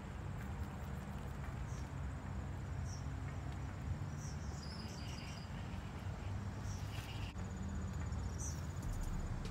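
Insects chirping outdoors: a thin, steady high trill with scattered short high chirps, over a constant low rumble.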